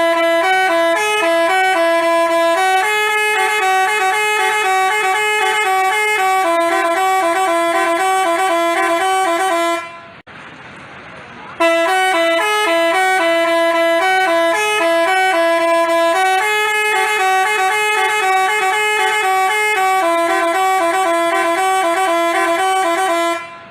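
Telolet basuri bus horn playing a tune: a series of steady horn notes stepping between a few pitches for about ten seconds. It stops for a second and a half, then plays the same melody again.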